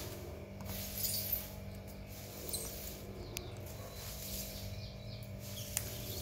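Rose-ringed parakeet biting and chewing a chunk of guava with its beak: soft scattered crunches and a few sharp clicks.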